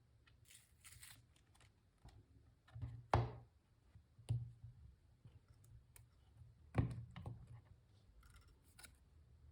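Akko MU02 mechanical keyboard with lubed HMX Caramel Pudding linear switches and rubber keycaps: a few scattered keystrokes rather than steady typing, the loudest, deeper presses about 3 and 7 seconds in, with lighter taps between.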